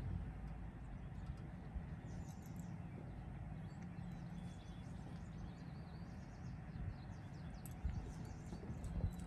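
Birds chirping in the background, in short high bursts from about two seconds in, over a steady low rumble of outdoor ambience.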